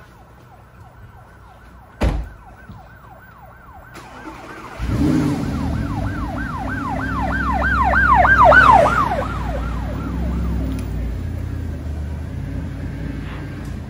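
A car door thuds shut about two seconds in. Near five seconds the Audi R8's engine starts with a short rev and keeps running. Over it, a siren sounds in rapid repeated up-and-down sweeps, growing louder to a peak past the middle and then fading.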